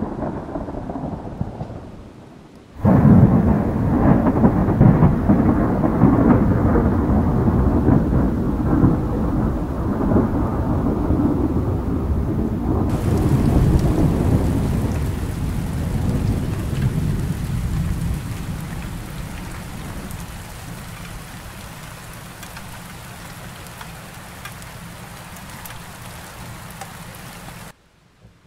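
Thunderstorm: thunder rumbling over rain. A first roll fades in the opening two seconds, then a sudden loud peal about three seconds in rolls on and slowly dies away while the rain hiss carries on, until the sound cuts off abruptly near the end.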